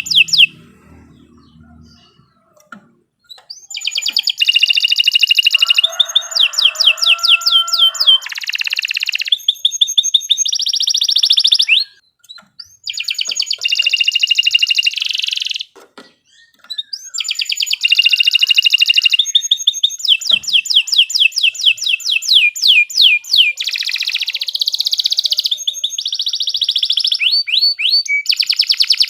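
Domestic canary singing long phrases of rapid trills and repeated chirping notes, with short pauses between phrases.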